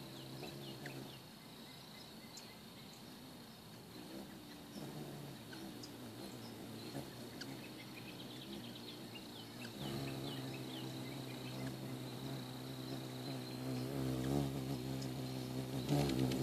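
Ruby-throated hummingbirds' wings humming as they hover and jostle at a feeder. The hum wavers in pitch and grows louder from about ten seconds in. Scattered short high chirps come and go, over a steady high insect tone.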